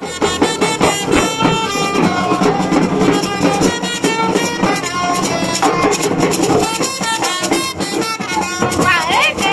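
Marching drums, with bass drums and smaller drums beating a steady rhythm, under a melody of held notes. There is a sliding pitch near the end.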